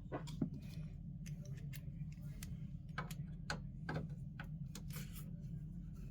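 Irregular light clicks and ticks of a screwdriver working small Torx screws out of a PS5's fan housing, with the screws being handled and set down, over a steady low hum.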